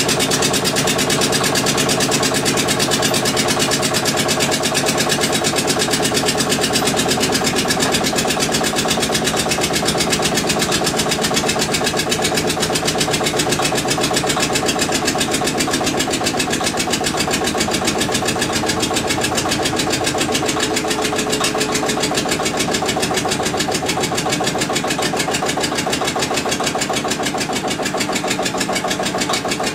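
Witte diesel generator engine running steadily at an even speed.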